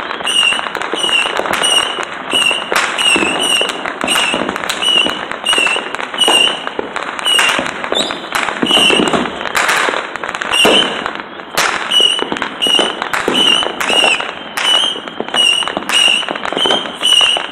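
Many fireworks and firecrackers going off at once in a continuous barrage of bangs and crackling. Through it runs a short high-pitched chirp, repeating a little less than twice a second.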